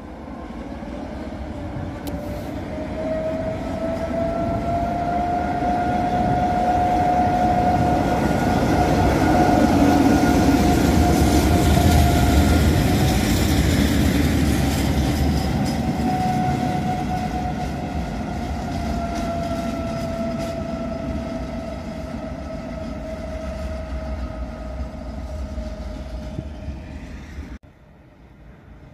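A train passing by: rumble and wheel noise build to a peak about ten seconds in and then slowly fade, with a steady whine running through it. The sound cuts off suddenly near the end.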